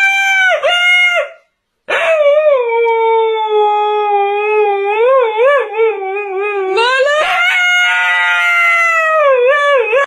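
Siberian husky howling: a short wavering howl, a brief pause, then one long howl of about eight seconds that wobbles in pitch and jumps higher about two-thirds of the way through.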